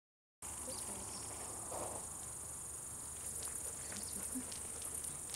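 Insects chirring in a steady, high-pitched buzz that cuts in after half a second of silence, with a few faint ticks.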